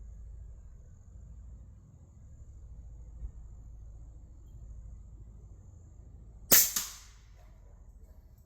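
A single shot from an AEA Challenger Pro .25-calibre PCP air rifle firing a 52-grain boat-tail slug: one sharp crack about six and a half seconds in, followed about a third of a second later by a quieter knock. Crickets chirp faintly and steadily before the shot.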